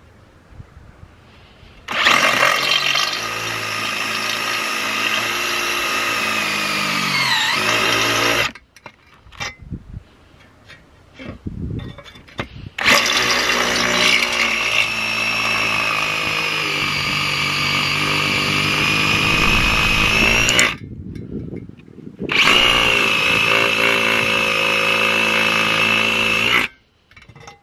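Cordless drill spinning an HSS titanium-coated step drill bit into a rusty steel pipe, cutting metal in three runs of several seconds each with short pauses between. The motor's whine drops in pitch near the end of the first run.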